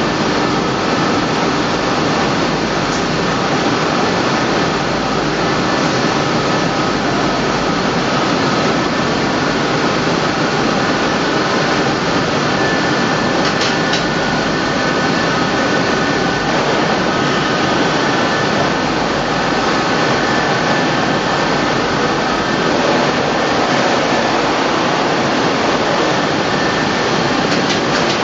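Welding-wire no-twist coiler running as it lays wire down into a carton: steady machine noise with faint high whining tones, and a couple of light clicks about halfway.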